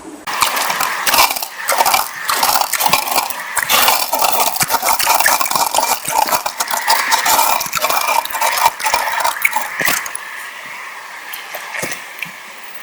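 Metal sluice-box gear clattering and clinking as it is handled and packed up. The knocks come thick and fast for about ten seconds, then grow sparse and quieter near the end.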